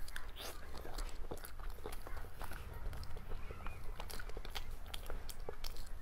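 A person biting and chewing cake, with many small, irregular mouth clicks and smacks.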